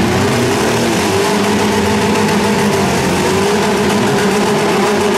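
Four-cylinder demolition-derby car engines running and revving, their pitch drifting up and down slightly.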